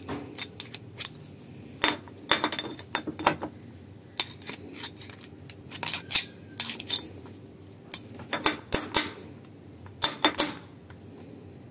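Steel screwdriver blade scraping and clinking against the metal bore of a Kugelfischer warm-up regulator housing, in irregular clusters of sharp clinks, as it prises at a washer held fast by a seal whose rubber has hardened.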